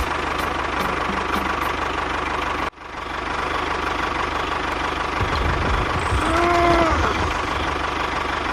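Small engine running steadily with a low, even rumble. It cuts out for a moment about three seconds in and then continues.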